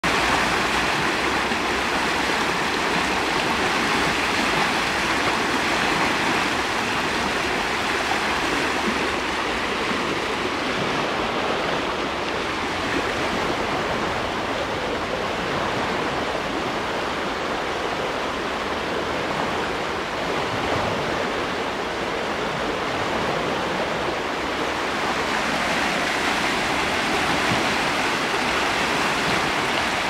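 Fast river water rushing and splashing over rocks: a steady, loud rush of white water, slightly less hissy in the middle stretch.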